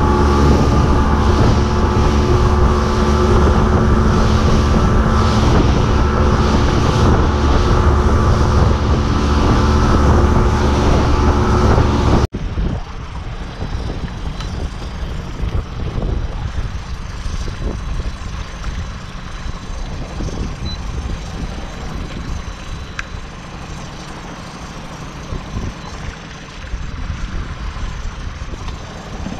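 Boat's outboard motor running at speed, with wind and rushing water. About twelve seconds in, the sound cuts off abruptly to a much quieter, steady sound of the boat moving slowly, with water and wind.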